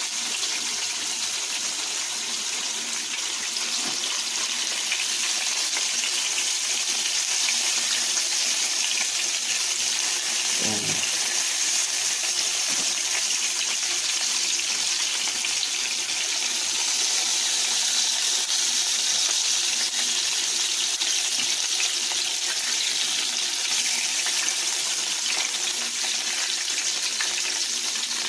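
Floured chicken liver pieces frying in olive oil in a pan, a steady sizzle.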